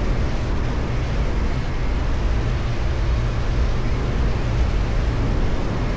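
Steady rumble and rushing noise of a motorboat running under way, with wind and water noise.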